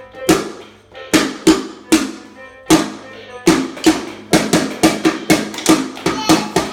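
A drum being hit over and over in an uneven beat, each stroke ringing briefly. After a short pause about 3 seconds in, the strokes come faster and more evenly, about four a second.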